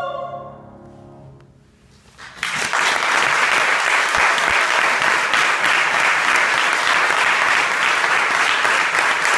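The final held note of a soprano and mezzo-soprano duet fades away, and after a brief silence an audience breaks into steady applause that carries on.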